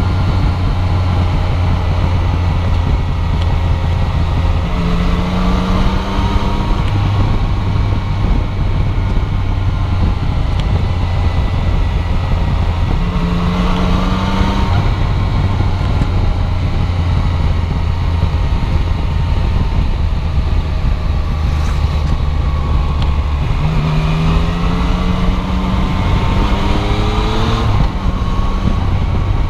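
Yamaha Tracer 900's three-cylinder engine running under way over a steady rush of wind and road noise, rising in pitch as it pulls harder about five seconds in, again around fourteen seconds, and in several short rising pulls near the end.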